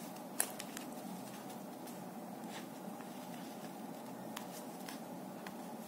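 Quiet room hum with a few faint taps and clicks as a cone of crochet thread is turned in the hands, one sharper tap near the start.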